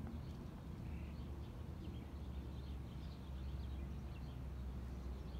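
Outdoor ambience: a steady low rumble with small birds chirping in the background, many short high chirps throughout.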